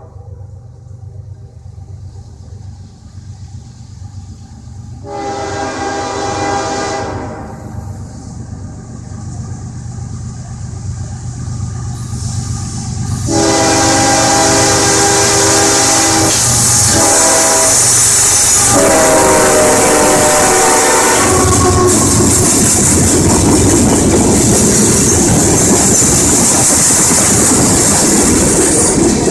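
CSX freight train's diesel locomotives approaching a grade crossing, rumbling and sounding their multi-tone air horn in several blasts, the last two nearly run together. About halfway through the locomotives pass close by and it gets much louder, then open-top hopper cars roll past with a steady rush of wheel-on-rail noise.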